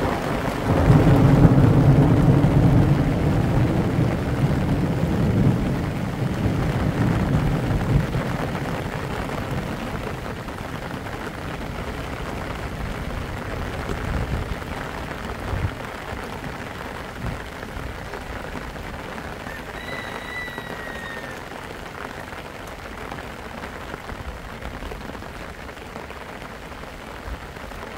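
Steady rain falling on wet ground and mud, louder and heavier-sounding over the first eight seconds, then settling to an even patter.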